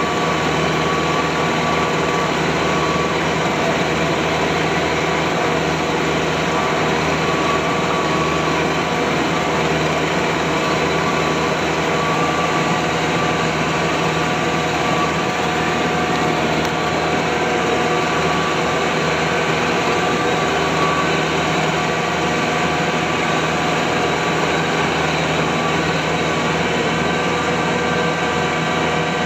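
Kubota DC-108X combine harvester's diesel engine and machinery running steadily, heard from the operator's position: a constant drone with steady whining tones over it.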